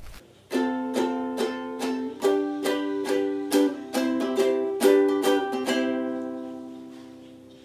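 Ukulele strummed in a short run of chords, the last chord ringing on and fading away.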